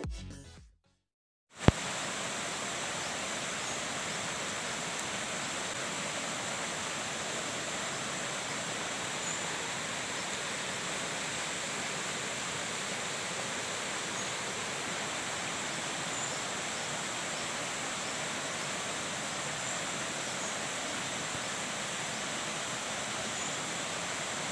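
Small forest stream flowing over rocks in a little cascade: a steady, even hiss of running water.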